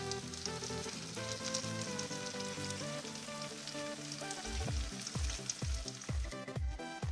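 Fat and juices sizzling with fine crackles around a whole salmon roasting uncovered in a foil-lined pan, over background music; a deep thumping beat comes into the music about four and a half seconds in.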